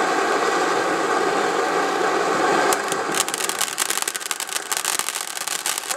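Ground fountain firework spraying sparks with a steady hiss; about three seconds in it changes to rapid, dense crackling.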